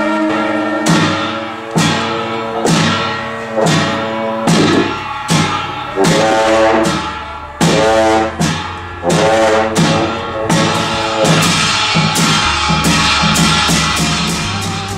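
Masked-dance music played on sustained horn or wind tones, with cymbal-like percussion crashes. The crashes come about once a second at first and quicken to two or three a second in the second half.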